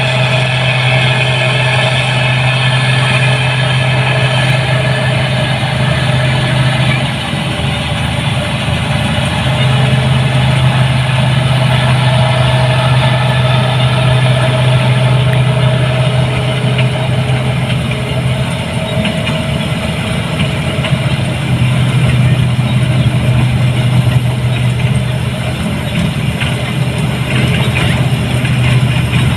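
New Holland 8060 combine harvester running steadily, a loud, even engine hum that wavers briefly twice, about seven seconds in and again near nineteen seconds.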